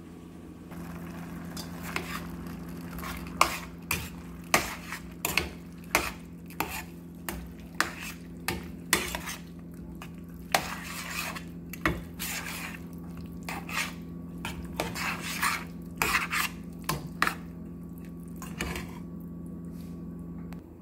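A spoon knocking and scraping in a metal pan as food in cream is stirred, with sharp clinks about once or twice a second from a couple of seconds in until near the end. A steady low hum runs underneath.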